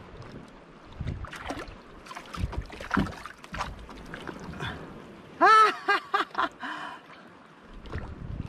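Handline hauled in over the side of a wooden outrigger canoe with a needlefish on it: scattered knocks and splashes against the hull. A little past halfway, a man lets out an excited cry in four short rising-and-falling whoops, the loudest sound.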